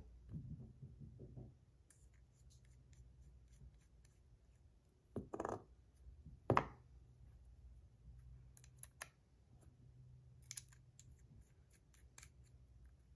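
Faint small clicks and taps of buttons being fitted onto and handled on a titanium fidget spinner, with two louder knocks about five and a half and six and a half seconds in.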